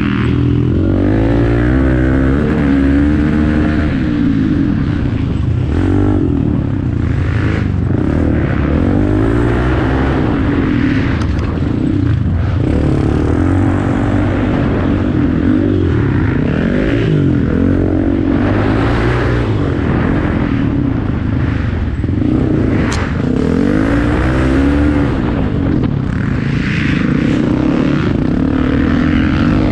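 Off-road racing motorcycle engine running hard, its pitch rising and falling again and again with throttle and gear changes.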